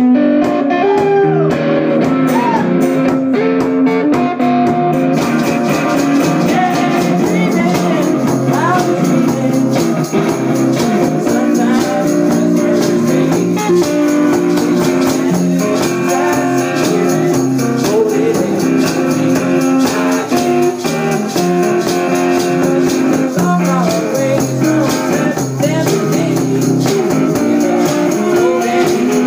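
A song played with guitar and a steady, even beat; the sound grows brighter about five seconds in as higher percussion fills out the top.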